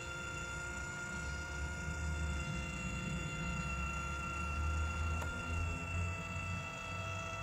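Happy Henhouse automatic coop door's electric motor running steadily as it raises the sliding door: a steady electric whine over a low hum.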